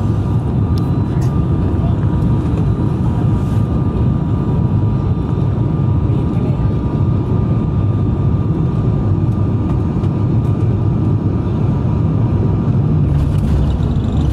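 Cabin noise of an ATR 72-600 turboprop airliner on final approach: a loud, steady drone from its Pratt & Whitney PW127M turboprop engines and propellers, with two thin steady whine tones over it. Near the end the higher whine stops and a rougher hiss joins the drone.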